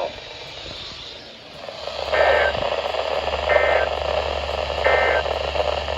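Three short bursts of EAS SAME digital data tones, a two-tone warble repeated about a second and a half apart, the pattern of the end-of-message code that closes a weather radio warning. They come over a rising radio hiss and low hum.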